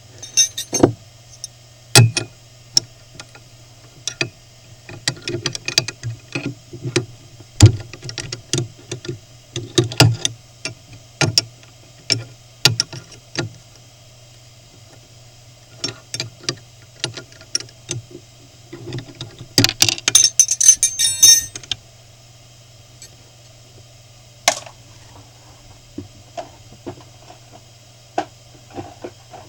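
Desktop CNC PCB mill running with a steady hum and a high whine, overlaid by irregular sharp clicks and clinks, with a dense rattle of clicks about two-thirds of the way through.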